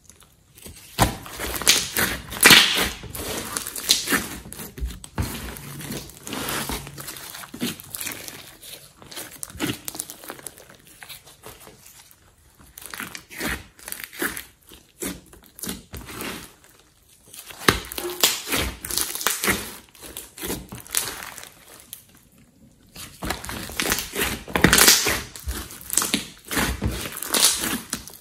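Hands squeezing, poking and stretching a large mass of thick slime. It gives wet squelches and quick crackling clicks, coming in bursts of a few seconds with short pauses between them.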